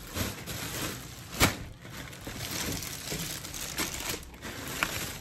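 Clear plastic garment bags crinkling and rustling as folded clothing is handled, with one sharp, louder snap about a second and a half in.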